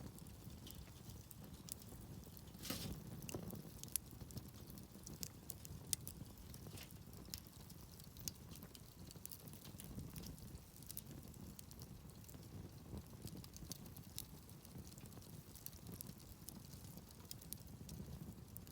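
Faint crackling of a wood campfire: irregular sharp pops and snaps over a low steady rumble, with a brief louder burst of crackling about three seconds in.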